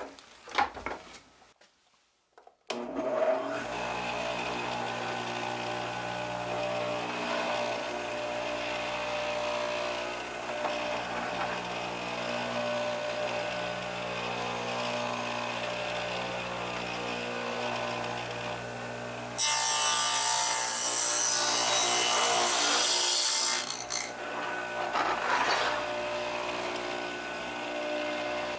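Table saw with a dado blade starts up about three seconds in and runs steadily. About twenty seconds in, the blade cuts a board for roughly four seconds, a 3/8-inch-deep edge cut for a hive box end piece. A shorter cut follows, and the saw keeps running.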